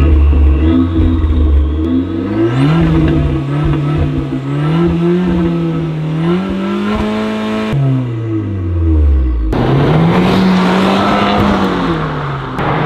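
Abarth's 1.4-litre turbocharged four-cylinder revved through its exhaust while parked: a few blips from idle, then held at higher revs, the note climbing and falling back. About 9.5 s in the sound changes to the car driving on the road, its engine note rising and easing over road noise.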